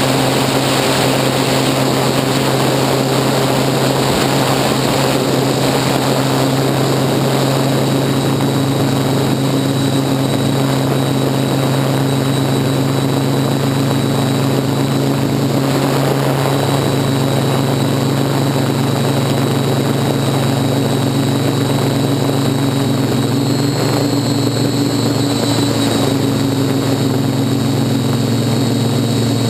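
Hexacopter drone's six electric motors and propellers buzzing steadily in flight, heard from the onboard camera, with a small shift in pitch about halfway through and again near the end.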